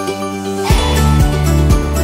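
Upbeat background music. Under a few seconds of light melodic notes, a bass line and kick drum come in a little under halfway through, setting a steady beat of about two a second.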